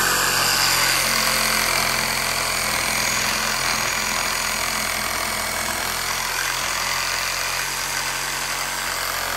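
Cordless reciprocating saw running steadily as its blade cuts through a wooden fence pole.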